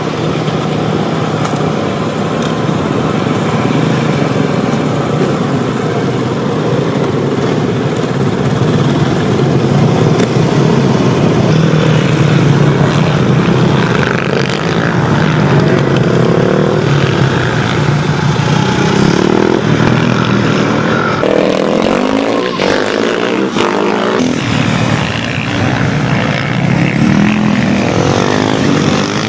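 Supermoto motorcycle engines running and revving on a track as bikes ride past. The pitch rises and falls repeatedly in the second half.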